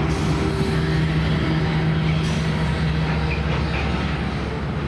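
Diesel locomotive at the rear of a hopper train running steadily as it moves away, a low engine drone over the rumble of wheels on rail. The drone eases slightly toward the end.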